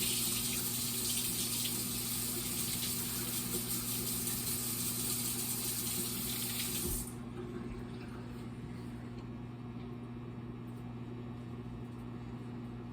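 Kitchen tap running into the sink, shut off suddenly about seven seconds in. Under it, a microwave oven runs with a steady hum.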